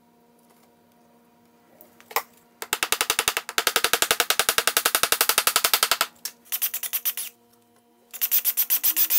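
Rapid, even mechanical clicking, about twelve clicks a second, in three bursts: a long one of about three seconds, a short one, then another near the end.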